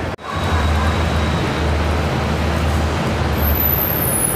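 Airport shuttle bus at the curb, its engine giving a steady low rumble amid traffic noise.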